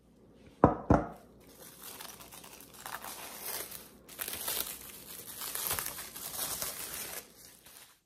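Two sharp knocks about half a second in, then plastic cling wrap crinkling and crackling as it is peeled off a glass mixing bowl.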